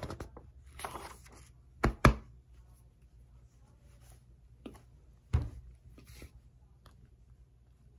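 Paper magazine being handled, its pages rustling, with a few short knocks and bumps. The loudest are two sharp knocks close together about two seconds in.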